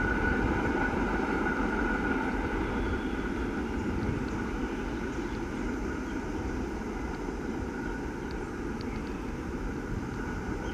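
Freight train of loaded wagons rolling away along the track, a steady rumble that slowly fades, with a steady high whine over it.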